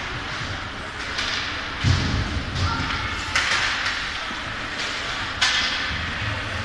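Ice hockey play: sticks and the puck clacking, with sharp knocks and thuds against the boards, the loudest about two seconds in and again about five seconds in, and skates scraping on the ice.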